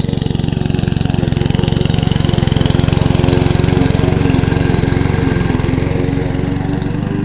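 Honda petrol walk-behind rotary lawn mower running steadily as it cuts grass, its engine note swelling slightly a few seconds in.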